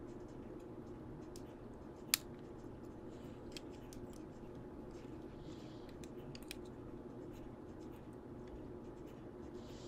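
Metal pliers clicking against wire as it is bent, with one sharp click about two seconds in and a few fainter ticks, over a faint steady hum.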